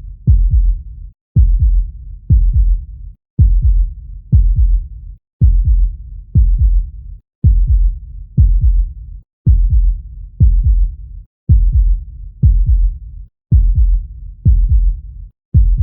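A heartbeat: a low double thump (lub-dub) repeating evenly about once a second, at a resting pace of roughly 60 beats a minute.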